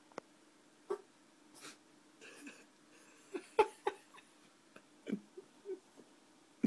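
Pet rabbit hiccuping: a string of short, sharp hics at irregular intervals, the loudest about three and a half seconds in.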